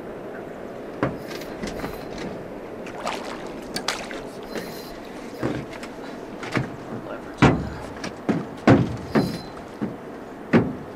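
Irregular knocks and thumps on a boat over a steady wash of river water, sparse at first and louder and closer together in the second half.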